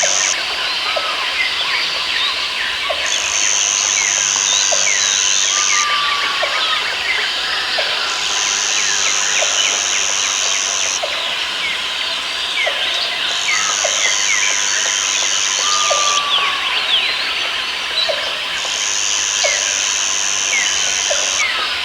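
Rainforest ambience: a dense chorus of bird chirps and calls under an insect's high buzz. The buzz comes in regular bouts of about three seconds with short pauses, five times. A short low note repeats about once a second.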